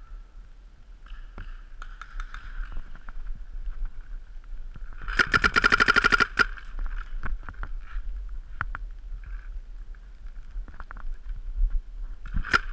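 Paintball marker firing a rapid string of shots, about five seconds in and lasting just over a second, with a second rapid string starting near the end. Scattered single paintball shots from other players sound in between.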